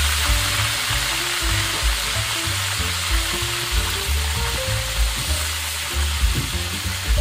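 Blue marlin fish steaks sizzling steadily as they deep-fry in hot oil in a wok, with background music playing under the sizzle.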